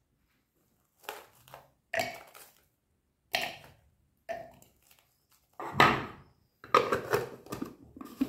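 Frozen strawberry pieces dropped a few at a time into the plastic bowl of a mini food chopper, each landing with a hard clunk about a second apart. Near the end comes a quick cluster of louder plastic knocks as the lid is fitted onto the bowl.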